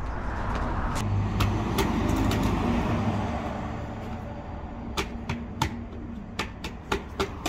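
A steady low rumble that fades over the first few seconds. From about five seconds in, a quick run of sharp little clicks and taps as hands work at the campervan's rear tyre and its valve.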